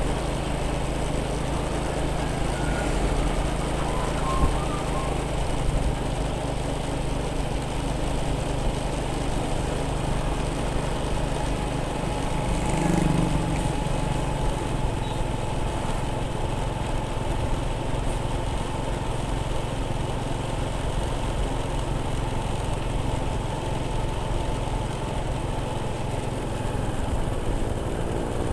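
Motorcycle engine running at a steady speed while riding, with road and wind noise.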